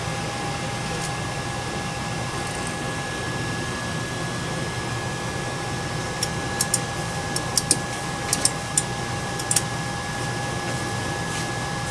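FLSun Q5 delta 3D printer running, with its fans humming and a steady high whine, as the print head finishes and rises away from the bed. A handful of sharp clicks sound in the second half.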